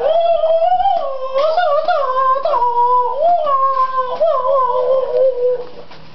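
A young child's high voice in one long wavering vocalization, the pitch sliding up and down with brief breaks, stopping about half a second before the end.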